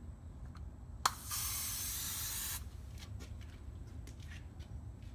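Aerosol spray can sprayed in one steady hiss of about a second and a half, starting right after a sharp click and cutting off cleanly.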